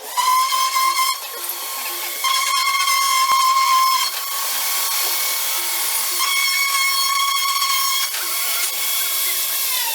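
CNC router spindle whining at a high, steady pitch with a hiss as its bit cuts holes into vinyl fence posts, growing louder in stretches; near the end the whine glides down in pitch as the spindle spins down.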